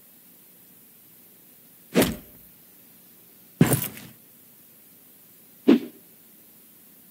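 Three short, sharp hit sound effects in an animated fight, about a second and a half to two seconds apart; the second runs on briefly as a rattle.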